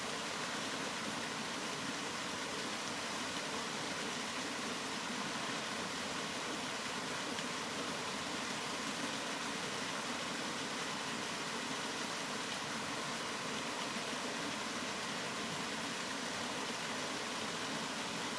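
Steady rain falling, an even, unbroken hiss with no single drops or other events standing out.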